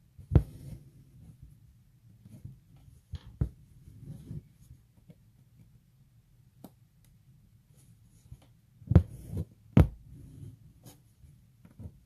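Hand-embroidery stitching: needle and floss drawn through fabric stretched in an embroidery hoop, giving soft scratchy rustles and several sharp pops or taps. The loudest two pops come close together about nine and ten seconds in.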